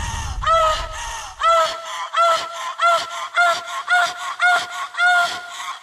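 A run of short goose-like honks, about two a second, each rising and dropping briefly in pitch. A low bass sound fades out in the first second and a half.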